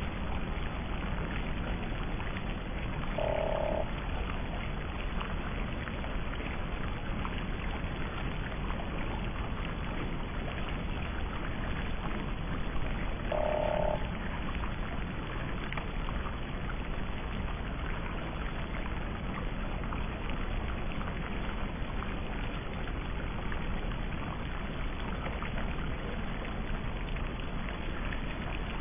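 Steady hiss-like background noise, with two short mid-pitched beeps about ten seconds apart, each about half a second long.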